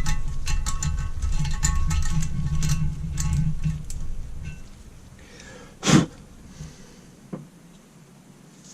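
A small motor running with a steady hum and rapid rattling clicks for about four seconds, then winding down and fading out, followed by a sharp knock about six seconds in and a lighter one a second later.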